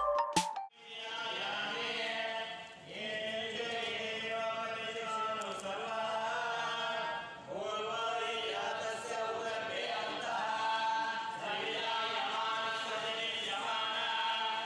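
Male voices chanting Hindu puja mantras together in long, even phrases, with short pauses about three and seven and a half seconds in. The last notes of an electronic intro jingle end just before the chanting begins.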